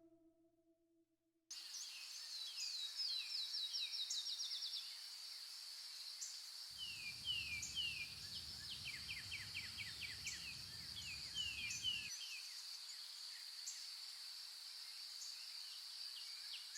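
Outdoor nature ambience: a steady high-pitched insect trill, with birds calling in runs of short, quick, descending chirps. A low rumble comes in about seven seconds in and stops about five seconds later.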